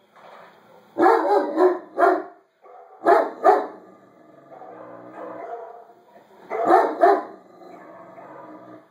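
Dogs barking in short loud groups of two or three, about a second in, at three seconds and near seven seconds, with fainter barking in between. The barking comes from a Great Dane and from the recorded dogs on a YouTube video that it is reacting to.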